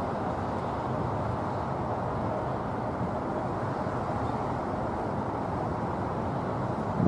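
Distant steady roar of a Boeing 787-9's jet engines as the airliner comes in to land, heard as an even rushing noise with no clear whine. A brief thump near the end.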